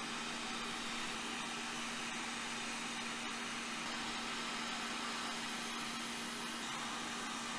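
Hot-air rework station blowing with a steady hiss and a low steady hum underneath, while small surface-mount parts are reflowed on a graphics card board.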